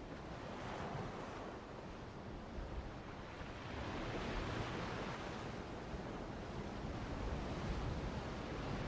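Faint ocean waves washing in a steady background bed, swelling slightly about four seconds in.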